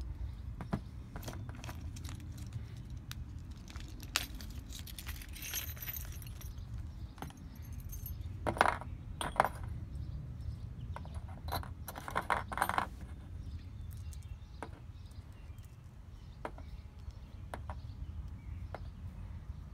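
Small metal screws and hex keys from a camera plate conversion kit clinking against each other as they are handled in the hand, in scattered clicks with louder clusters about five, nine and twelve seconds in, over a low steady hum.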